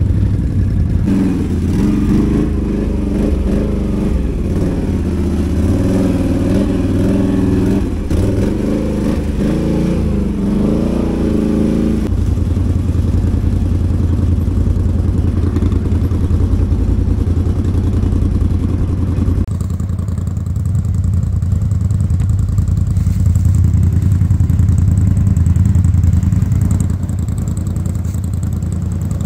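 ATV (quad bike) engine running under changing throttle, its pitch rising and falling, then settling about twelve seconds in to a steadier, deeper running.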